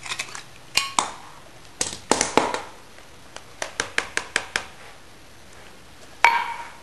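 Small tin can of diced green chilies being emptied into a bowl: metal clicks and scrapes of a utensil against the can, a quick run of about eight taps around four seconds in, and one louder clank near the end.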